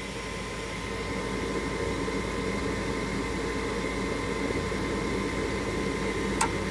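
ICP gas furnace starting up with its cleared pilot orifice: a steady rushing hum that builds a little over the first couple of seconds, with a sharp click near the end. The furnace is lighting, the clogged pilot fixed.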